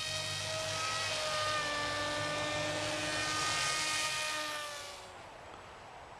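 Whine of an RC glider's ElectriFly Ammo 3180 kV in-runner brushless motor and propeller in flight, its pitch drifting slightly. It dies away about five seconds in.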